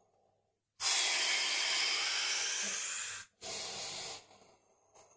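A person breathing hard through the mouth while holding a deep hip stretch: one long, loud breath of about two and a half seconds, then a shorter second breath.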